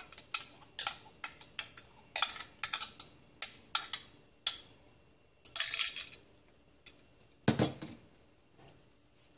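A utensil clinking and scraping against a bowl as mashed banana is scraped into the batter bowl: irregular sharp taps through the first four seconds, then a quick run of scraping around six seconds in. A single heavier knock comes about seven and a half seconds in.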